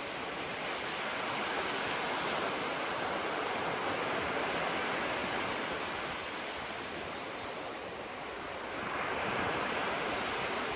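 Gentle waves breaking and washing onto the shore: a steady hiss of surf that swells about two seconds in and again near the end.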